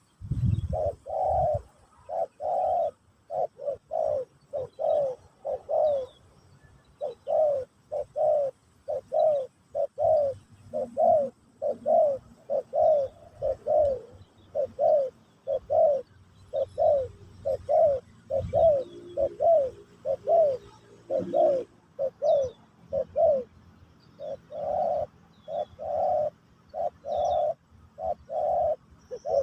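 Spotted dove (terkukur) cooing: a long series of short coos, about two a second, in phrases broken by brief pauses. Faint chirps of small birds are heard between them.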